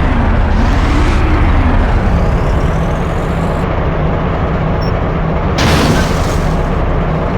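Road traffic: a motor vehicle running close by over a heavy low rumble, with a brief burst of hiss about five and a half seconds in.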